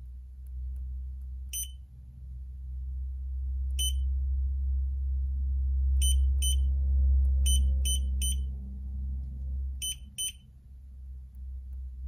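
Short high beeps from a STONE smart TFT touchscreen display's buzzer, one for each tap of a finger on its on-screen buttons: nine beeps, several in quick pairs. A low hum runs underneath and swells in the middle.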